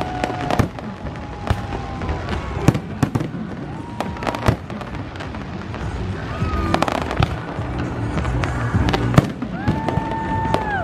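Fireworks display: aerial shells bursting in a steady run of irregular sharp bangs and crackles, with music playing underneath.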